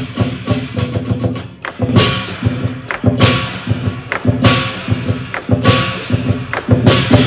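Live lion dance percussion: a large Chinese drum beating rapidly under clashing hand cymbals, with a big cymbal crash about every second and a bit.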